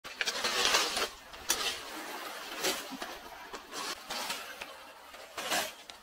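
Pebbles and coarse sand crunching and rattling on a beach in irregular bursts about once a second, with a soft hiss between them.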